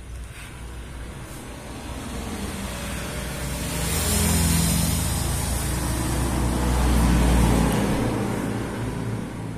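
A motor vehicle passing by, its engine noise swelling over a few seconds, peaking twice in the middle and fading near the end. Underneath runs the low steady hum of an electric hair clipper.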